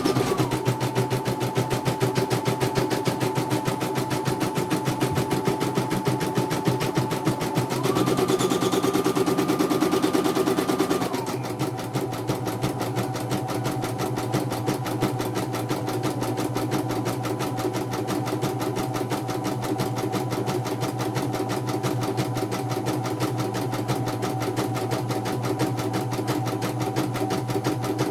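CNY portable computerised embroidery machine stitching a design: rapid, even needle strokes over a motor whine. The whine steps up in pitch for a few seconds, then drops lower and the machine runs a little quieter from about eleven seconds in.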